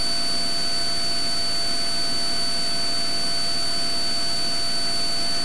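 Steady in-flight cabin noise of a Cessna T182T Skylane's turbocharged 540 cubic inch Lycoming engine and propeller, an even hiss with a thin, steady high whine over it.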